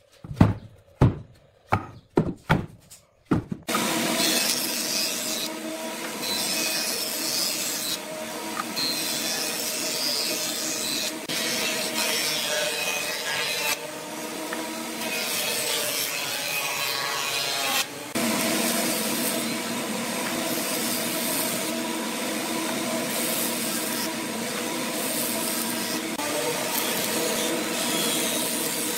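A quick series of sharp knocks on wood, then a wood lathe running as a turning tool cuts the spinning wood: a steady scraping noise over a constant hum, with brief dips where the tool lifts off.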